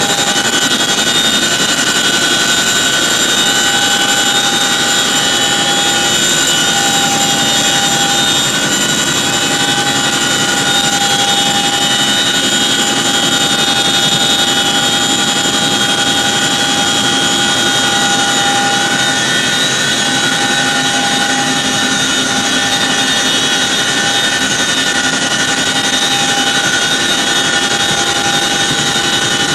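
CH-47 Chinook tandem-rotor helicopter running steadily, heard from inside the cabin with the rear ramp open. A dense, loud rush of noise carries several steady high whining tones.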